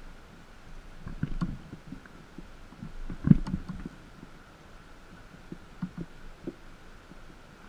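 Dull knocks and thumps of handling on a small fishing boat: a cluster about a second in, the loudest about three seconds in, then a few lighter taps. A faint steady high tone runs underneath.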